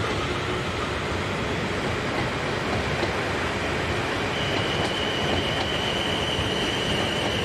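Train running on the rails with a steady rushing noise; a steady high-pitched squeal sets in about halfway through.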